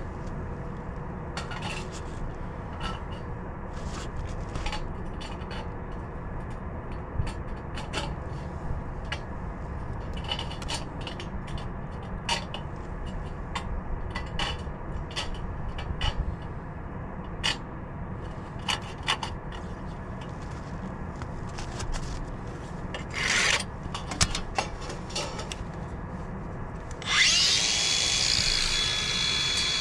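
Scattered taps and scrapes of hand work on a brick chimney over a low steady rumble. Near the end an angle grinder starts up and runs loud and steady with a high whine, cutting into the chimney's masonry.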